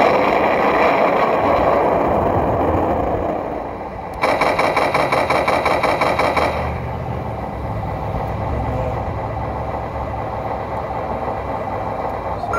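The onboard sound module of a 1/10-scale Imex HG-P408 RC Humvee plays engine sound effects. A loud engine sound fades over the first few seconds. About four seconds in, a rapid machine-gun-fire effect runs for a couple of seconds, then a low steady idle follows.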